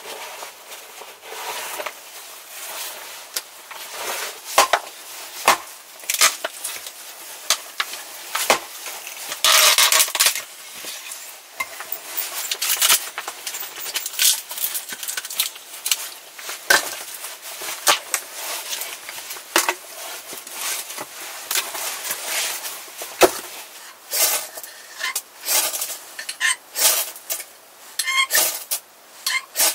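Sticks and split kindling being handled and laid for a campfire: irregular sharp wooden knocks and clatters against rock, with a longer scrape of about a second about ten seconds in.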